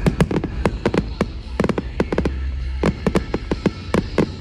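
Aerial fireworks bursting in a rapid, irregular run of sharp bangs and cracks, several a second, over a low rumble.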